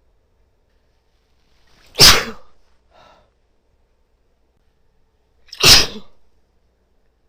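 A woman sneezing twice: full, unstifled sneezes about three and a half seconds apart, each with a brief lead-in breath, and a faint short breath after the first.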